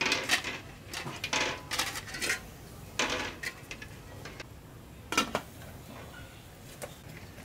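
Duck eggs clinking against a metal colander and an aluminium pot as they are set into the water, a run of short clatters. About five seconds in comes the loudest single clank, as the pot's aluminium lid goes on.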